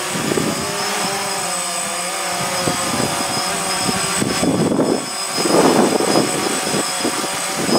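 DJI Phantom quadcopter hovering close by: the steady whine of its four electric motors and propellers, its pitch wavering as the drone holds its position against the wind, with two louder rushes about halfway through.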